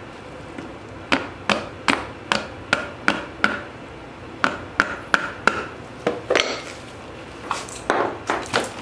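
Hammer tapping the case cover of a BMW E30 188 mm limited-slip differential down onto the carrier: sharp knocks, each with a short ring, about two or three a second in three runs.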